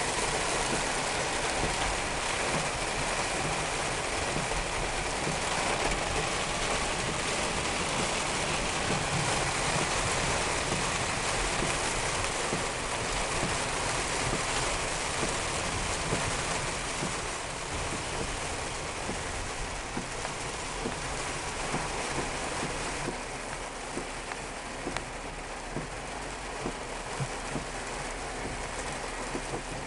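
Heavy rain falling on a car's roof and windshield, heard from inside the cabin as a steady hiss. It eases somewhat in the second half, with a few louder taps standing out near the end.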